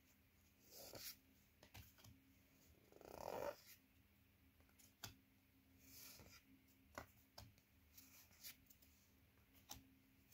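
Faint sliding and clicking of cardboard trading cards being flipped through by hand, with a short, louder swish about three seconds in.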